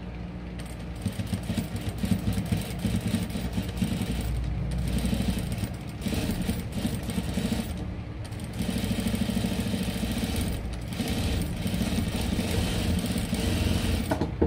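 Juki industrial sewing machine stitching in several runs, topstitching a neckline. It stops briefly a few times between runs.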